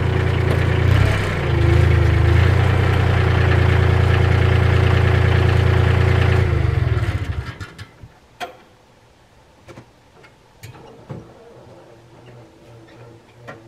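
Compact tractor engine running steadily, with a brief dip about a second in, then switched off about seven seconds in and winding down to a stop. Afterwards only a few faint clicks and knocks.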